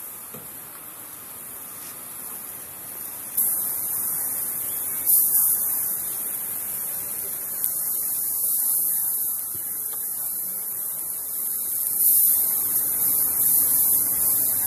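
Pieces of fresh pineapple sizzling as they are laid on hot grill grates. A high hiss starts suddenly a few seconds in and swells again each time more pieces go down.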